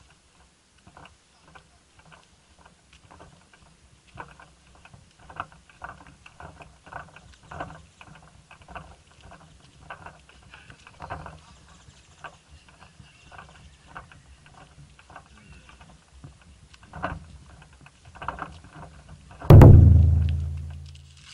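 Footsteps of a person walking, about two steps a second. Near the end, a loud sudden hit with a low ringing tone that dies away over about a second and a half.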